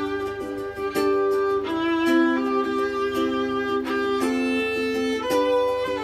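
Violin playing a melody of held notes that change about once a second, over a plucked guitar accompaniment.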